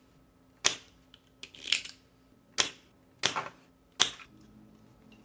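A series of sharp clicks and snaps, about six of them, some with a short rasping tail, from hand tools at work as the low-voltage transformer is freed from a microwave oven's control board.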